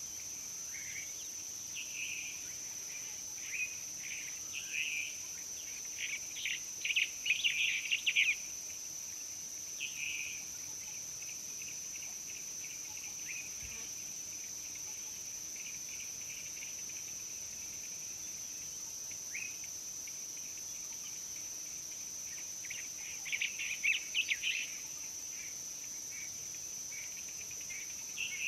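Outdoor insect chorus: a steady, high-pitched trill of crickets or similar insects, with two bouts of rapid high chirping, one about a quarter of the way in and another late on.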